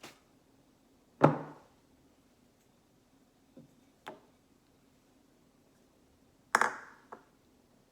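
A handful of sharp knocks and clacks of kitchen containers or utensils, set down or tapped against a mixing bowl as the ingredients are combined. The loudest knocks come about a second in and near the end, where two come close together.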